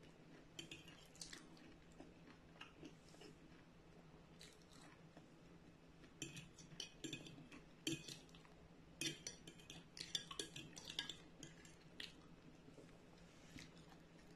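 Metal fork clinking and scraping on a plate while picking up pieces of fried tofu. The sound is quiet: scattered light clicks, busiest in two runs about six and nine seconds in.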